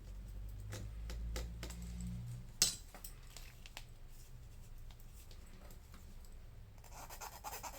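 Light clicks and taps of small repair tools on a smartphone's internal parts, with one sharper click about two and a half seconds in and a denser run of scratchy clicking near the end.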